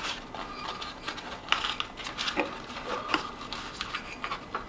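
Light handling noises of hands working at an air compressor pump's oil filler: scattered small clicks and rustles, a few sharper ticks about a second and a half in and again around two and a half and three seconds.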